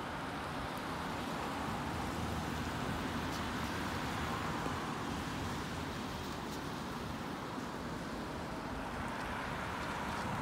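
Steady rushing noise of cars driving along the street, mixed with gusty wind, swelling a little in the middle.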